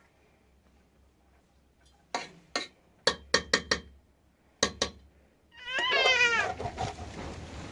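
An animal crying: eight short, sharp cries in quick groups, then about six seconds in a longer cry that wavers rapidly and falls in pitch. A steady rushing noise follows it.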